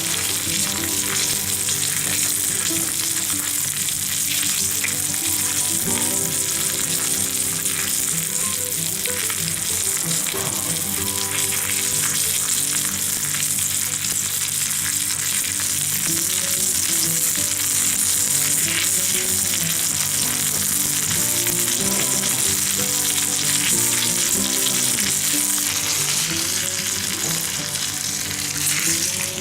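Sea bass frying in butter in a cast-iron skillet: a steady sizzle.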